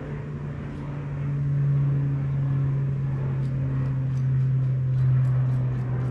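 A steady low motor hum, with faint light clicks over it in the second half.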